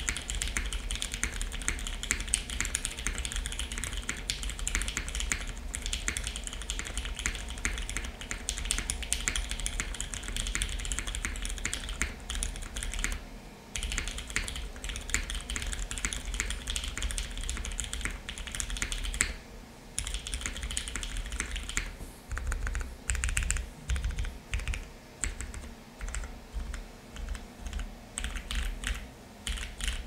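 Typing on a custom mechanical keyboard with lubed, filmed Hyperglide Cherry MX Brown tactile switches in a full aluminium plate, o-ring gasket mount, and GMK keycaps. The keystrokes are fast and continuous at first. From about two-thirds of the way through they break into separate short clusters, roughly two a second.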